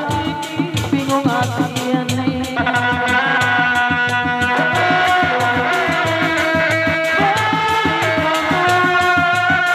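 Sundanese dog-dog drumming: a large hide-headed drum and smaller dog-dog frame drums beaten by hand in a fast, dense rhythm, with a sustained pitched melody over them.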